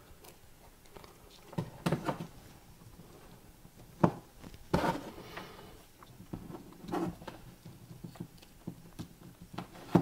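Crocodile-clip test leads being handled and clipped onto the pins of a USB breakout board: a few scattered light clicks and knocks.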